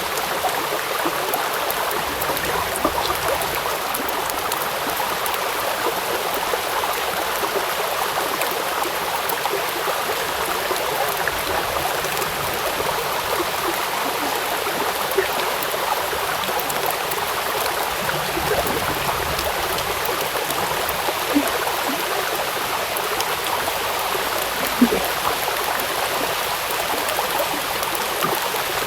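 Rain falling on a river: a steady hiss of drops on the water with scattered small patters and plinks over the flowing water.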